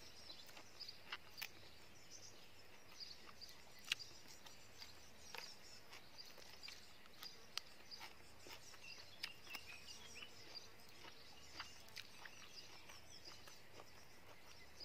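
Quiet garden background with faint birds chirping. Scattered small clicks and ticks about once or twice a second, the sharpest about four seconds in, from close-by handling of food on foil.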